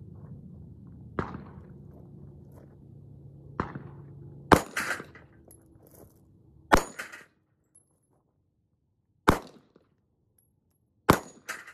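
Sig Sauer P938 Legion 9mm pistol firing single shots at steel plates: four loud shots about two seconds apart in the second half, most followed by a short ringing clang of the steel being hit. Two fainter pops come earlier.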